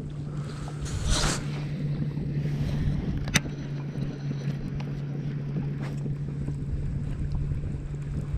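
A small boat's motor running with a steady low hum. A brief swish comes about a second in and a single sharp click about three and a half seconds in.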